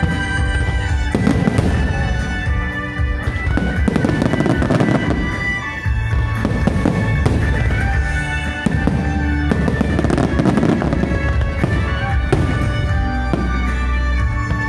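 Aerial firework shells bursting again and again, with bouts of crackling after the bursts, over steady music.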